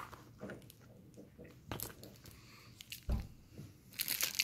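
Plastic bag being handled and torn open by hand: scattered soft crackles and clicks, one dull thump about three seconds in, then steady crinkling of the plastic near the end.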